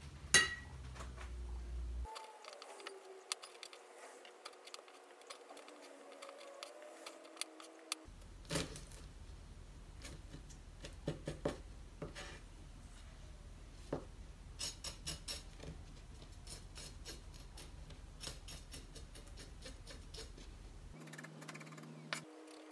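Kitchen knife cutting small whole fish on a wooden cutting board: scattered sharp taps and clicks of the blade on the board, some in quick runs, with one louder knock just after the start.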